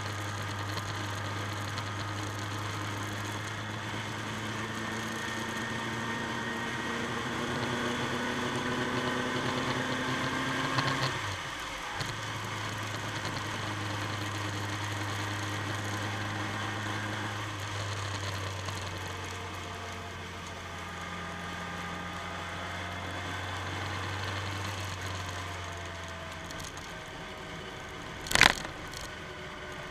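Motorcycle engine running under way, its pitch climbing slowly and then dropping with a brief break about eleven seconds in before it settles again. A single sharp knock sounds near the end.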